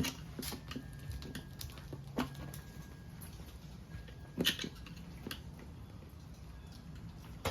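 Flathead screwdrivers levering a tire bead over a motorcycle wheel rim: irregular metallic clicks and knocks, a few seconds apart, over a steady low hum.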